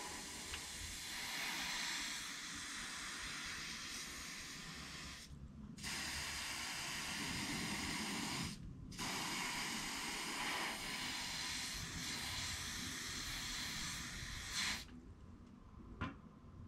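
Aerosol insecticide spray can hissing in long bursts. It breaks off twice for about half a second, then stops abruptly near the end, with a single click just after.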